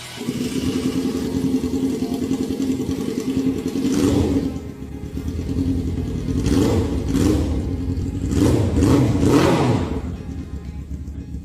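Honda CBR600RR inline-four engine running, with the throttle blipped in several short revs through the second half. It runs after the bike's wiring was redone and its clogged fuel injectors were cleaned.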